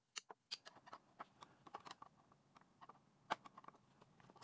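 Faint scattered clicks and taps of a screwdriver and fingers working a small Phillips screw out of the DC converter's metal housing, with one sharper click about three seconds in.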